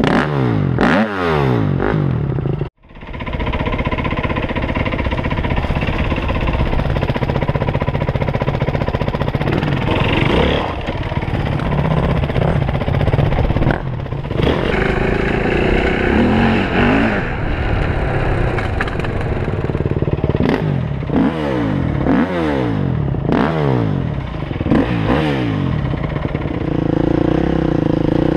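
Four-stroke single-cylinder dirt bike engines (a KTM SX-F 250 and a Yamaha WR450F) running and revving, the pitch rising and falling over and over as the bikes are ridden across grass. The sound cuts out for a moment about three seconds in.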